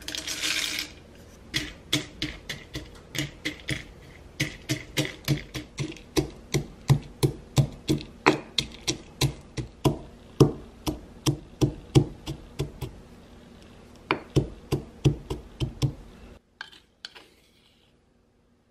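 Roasted peanuts rattle into a granite mortar, then a granite pestle pounds them, sharp knocks about three a second with a brief pause, crushing the nuts into small pieces.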